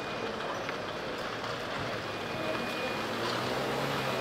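Steady outdoor city street noise, an even wash of traffic, with a low engine hum coming up in the last second or so.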